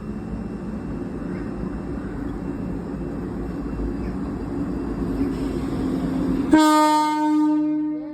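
Passenger train running through with a rumble that builds steadily, then a single loud horn blast about six and a half seconds in, held for about a second and a half and sagging in pitch as it fades.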